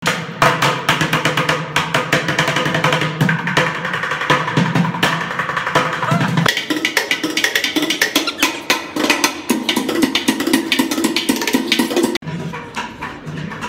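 Music with a busy percussion beat of wood-block-like clicks over a lower melodic line; it dips for an instant near the end and carries on a little quieter.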